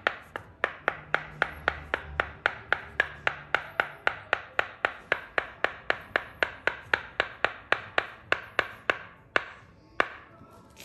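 Tok Sen massage: a wooden mallet tapping a wooden wedge held against the lower leg, a steady run of sharp wooden knocks about three to four a second. The knocks stop near the end.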